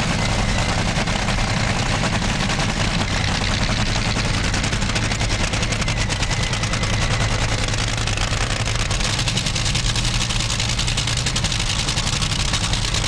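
Top Fuel dragster engines running: supercharged nitromethane-burning V8s giving a loud, continuous, rapid crackling rattle.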